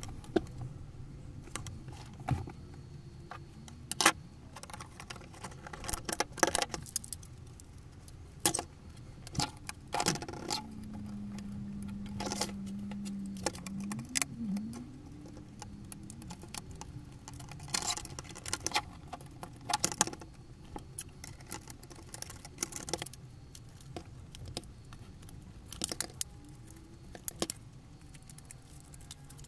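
Plastic parts of a Ford Focus mk2 instrument cluster being handled and fitted back together on a bench: irregular sharp clicks, taps and light clatter. A low steady drone lasts a few seconds around the middle.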